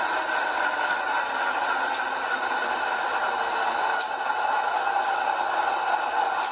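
ESU LokSound sound decoder in an HO scale Athearn diesel switcher playing a steady diesel engine idle through the model's small onboard speaker, thin and without low bass. A thin steady high whine and a faint tick about every two seconds run alongside it.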